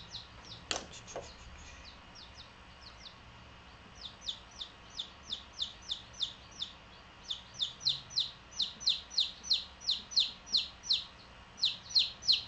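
Baby chicks peeping close by: short, high peeps, each falling in pitch. They come sparsely at first, then rapidly at about three a second and louder from about halfway through.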